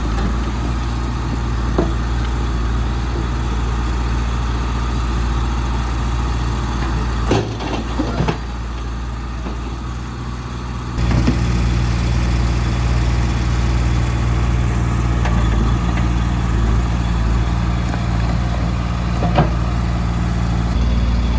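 Heavy diesel engine running steadily at low revs, with a few sharp knocks. It goes quieter for a few seconds about a third of the way in, then picks up again about halfway.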